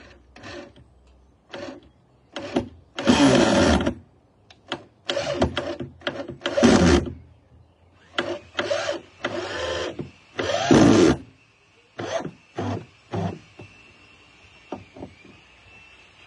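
Corded electric drill driving 150 mm by 7 mm structural screws down into timber, run in short trigger bursts. The motor pitch drops as each screw bites and loads it, with the longest runs about three, seven and eleven seconds in. The bursts stop after about thirteen seconds, leaving a few short taps near the end.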